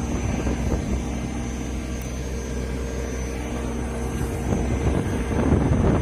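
Rooftop air-cooled chiller plant running: a steady mechanical drone of its condenser fans and compressors with a constant low hum.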